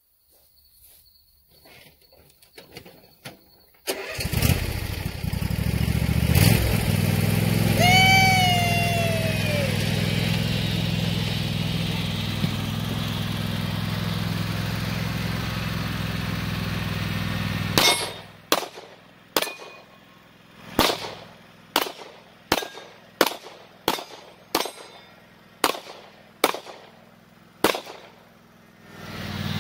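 A riding lawn mower's engine starts about four seconds in and runs steadily as the mower drives up. Then about fourteen pistol shots from a Glock 26 9 mm are fired quickly, one after another, over about ten seconds from the moving mower.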